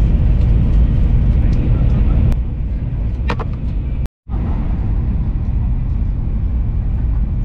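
Steady low rumble of a moving high-speed train heard from inside the carriage, cutting out for a split second about four seconds in.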